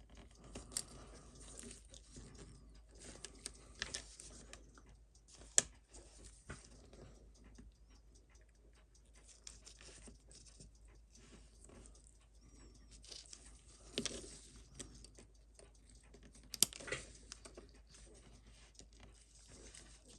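Faint, scattered small clicks and taps of watchmaker's tools on the small metal parts of a watch movement being taken apart, with a few sharper single clicks.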